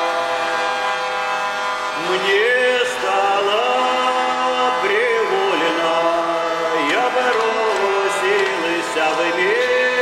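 Hurdy-gurdy drone sounding steadily, with a man singing a Russian spiritual verse over it in a chant-like melody that enters about two seconds in.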